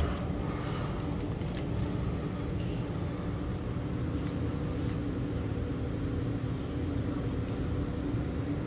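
Steady low background hum of a room, with a faint steady tone in it, and a few faint clicks in the first few seconds.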